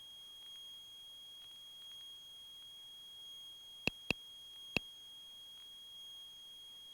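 Steady high-pitched electrical whine on the aircraft intercom audio, with three sharp clicks about four seconds in: two close together, then one more about half a second later.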